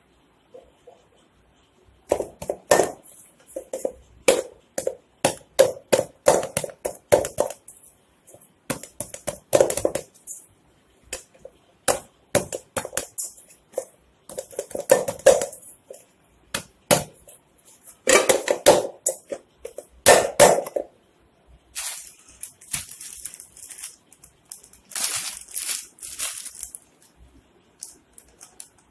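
Chapati dough being kneaded by hand in a stainless steel bowl: irregular knocks and thuds as the dough and hand press against the metal bowl. Near the end comes a stretch of rustling, as a plastic packet is handled over the bowl.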